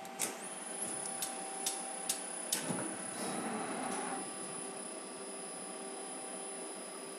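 Slant-bed CNC lathe with hydraulic chuck and tailstock: six sharp clicks about every half second, then a rushing mechanical noise for about a second and a half, over a steady machine hum.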